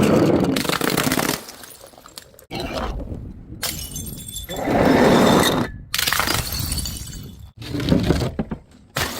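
Glass bottles smashing and shattering, a run of separate breaks cut one after another about every one to two seconds, each a loud crash with crunching and tinkling glass.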